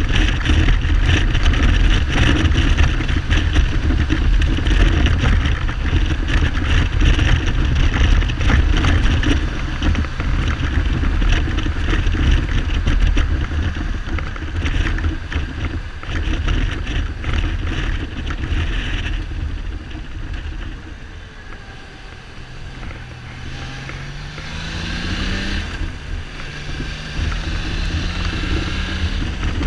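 Kawasaki Z1300 inline-six motorcycle engine under way, with heavy wind noise on the microphone for most of it. About two-thirds in the wind drops, and the engine note rises as the bike accelerates, breaks off at a gear change and rises again near the end. The bike is not running on all cylinders, which the owner puts down to carburettor or spark plug trouble.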